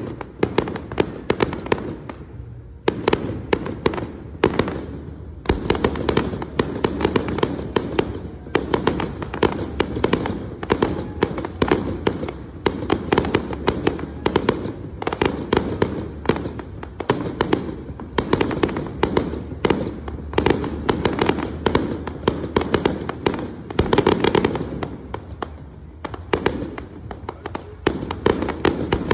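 Fireworks display: a dense, rapid run of sharp cracks and bangs, the crackle of bursting shells, with a brief lull a few seconds in.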